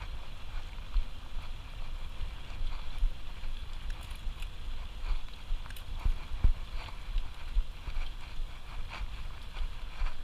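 Wind rumbling on the microphone of a mountain bike rider, with scattered clicks and rattles from the bike rolling over a rough trail.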